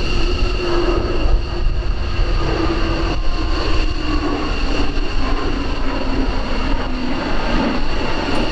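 JASDF F-15J Eagle's twin turbofan jet engines running, a steady high-pitched whine over a loud rush, with a lower tone wavering slightly.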